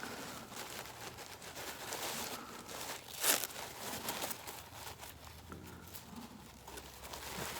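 Light rustling and crinkling of handling, with one sharp click about three seconds in.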